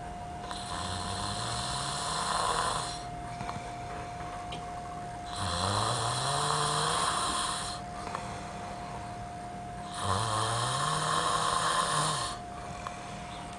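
A drunk man asleep and snoring: three long snores, each rising in pitch, about every five seconds.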